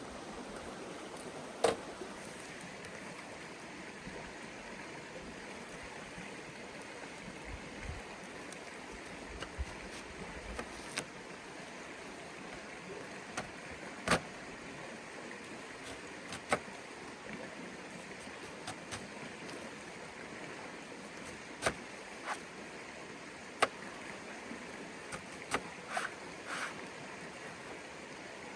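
River water flowing steadily, with scattered sharp clicks and knocks of things being handled close by.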